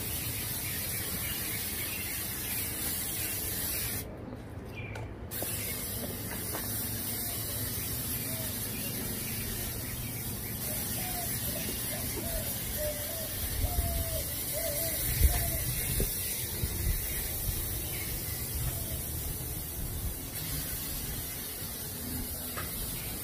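Aerosol can of coconut oil spraying in a steady hiss, with one break of about a second roughly four seconds in.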